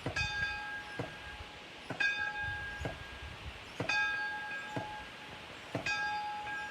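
A single church bell tolling, hand-rung by rope and struck about every two seconds. Each stroke rings on with a clear chord of overtones, and a short dull knock falls halfway between strokes.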